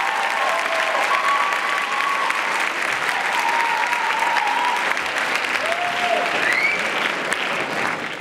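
Audience applauding, with cheering voices calling out over the clapping; the applause drops away at the very end.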